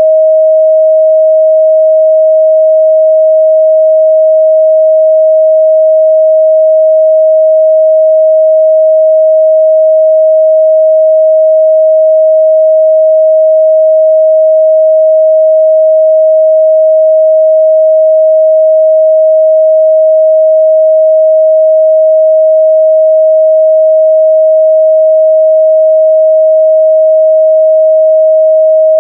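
Steady, unbroken 631 Hz sine-wave test tone, a single pure pitch held at constant loudness.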